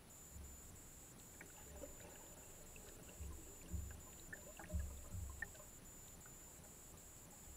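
Faint underwater sound heard through a camera housing on a speargun: a handful of dull low thumps, the strongest about two-thirds of the way through, with scattered faint clicks and a thin high tone pulsing at an even rate.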